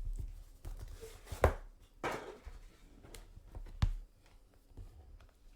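Hands handling and opening trading-card packaging: a few sharp knocks and a brief rustle as the box and pack are worked open.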